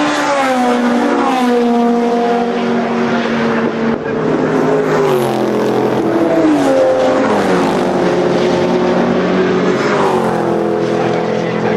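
Several racing cars running at full speed past the trackside, their engines one after another, each engine note dropping in pitch as it goes by.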